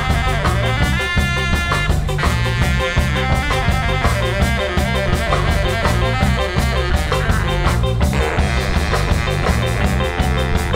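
Live band playing a reggae and tsifteteli fusion tune: saxophones, baritone sax and trumpet carry the melody over a steady bass line, guitar and drums. The horn lines change about two seconds in and again near the end.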